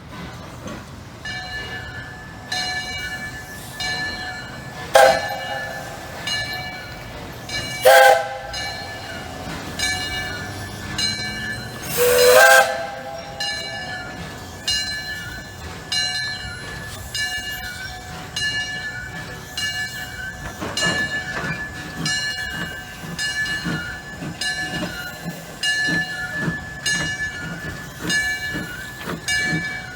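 Steam locomotive whistle blowing three times, two short blasts and then a longer one, over a bell ringing steadily about one and a half strikes a second. Toward the end a low regular beat from the passing train joins in.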